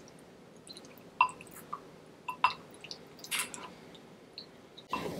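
Close-miked wet eating sounds: chewing and smacking on buttery seafood boil, with a few sharp wet clicks about a second in, at about two and a half seconds, and near three and a half seconds. Near the end the background hiss steps up suddenly.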